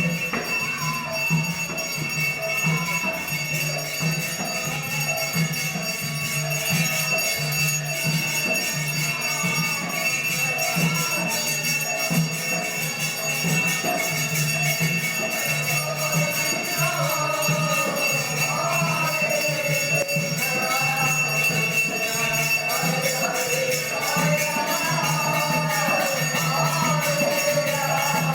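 Music with a fast, even jingling rhythm, a pulsing low note and a melody line.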